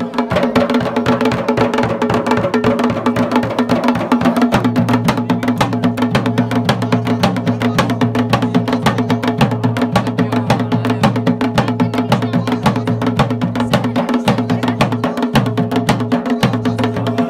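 Dhol and damau drums played together in a fast, unbroken beat, the rhythm of a Garhwali mandaan dance.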